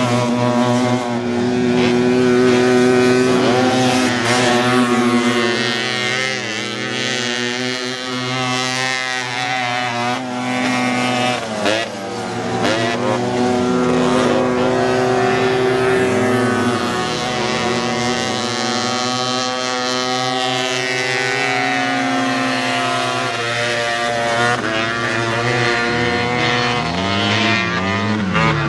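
Engines of off-road race buggies running hard on a dirt short course, their pitch repeatedly rising and falling as they rev.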